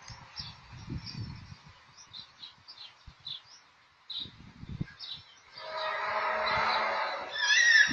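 Small birds chirp for the first few seconds, with low rumbles now and then. About five and a half seconds in, a loud, drawn-out, trumpet-like tone with many overtones starts, holds steady, then swells and rises in pitch near the end: the kind of sound reported as the mysterious "sky trumpets".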